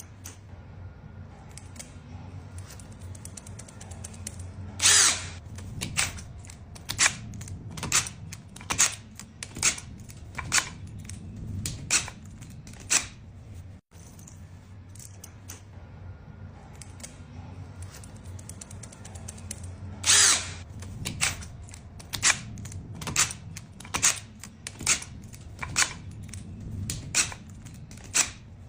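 A power tool for installing furniture, with a steady low hum and a run of sharp clicks a little under a second apart; the first click is the loudest and longest. The hum cuts out briefly midway, and then the same run of clicks repeats.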